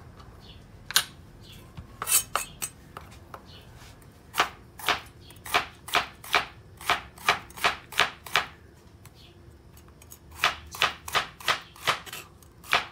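Kitchen knife slicing bitter melon on a plastic cutting board: a few scattered knocks first, then steady chops about two to three a second, pausing for about two seconds in the middle before picking up again.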